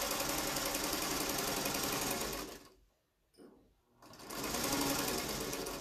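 Electric sewing machine stitching at a steady fast speed. It stops for about a second and a half, then runs again as the seam at the bag's base is backstitched.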